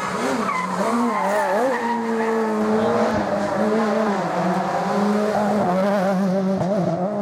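Rally car engine running hard on a stage: the pitch rises and falls several times in the first two seconds as the driver works the throttle and gears, then holds at a fairly steady high rev with small wavers.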